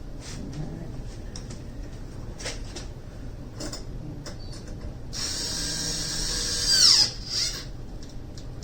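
Cordless power driver running a screw in for about two seconds, a steady whine that drops in pitch as it winds down and stops, after a few light clicks and knocks of handling.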